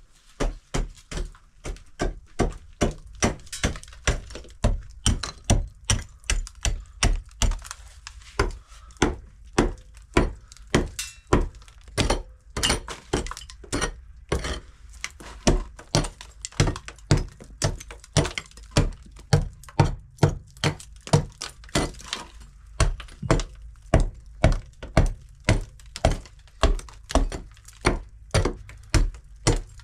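Repeated sharp knocks, about two a second, kept up steadily with a couple of brief pauses.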